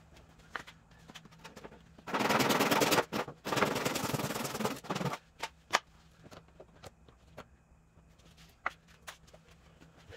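A handheld power tool run in two short bursts with a fast rattle, the second burst a little longer than the first. Scattered light taps and clicks of parts being handled come before and after.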